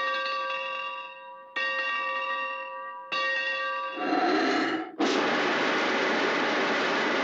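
Studio sound effect of a locomotive bell, struck three times about a second and a half apart, each stroke ringing on. Just after the third, a burst of steam, then from about five seconds a loud, steady hiss of steam as the train effect gets under way.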